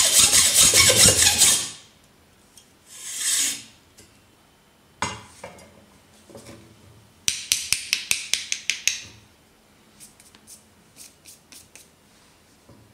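Hacksaw cutting through a Japanese natural whetstone (Okudo suita) in fast rasping strokes, stopping about a second and a half in. Afterwards come quieter handling sounds: a swish, a knock, a quick run of about ten short scraping strokes midway, and a few light clicks near the end.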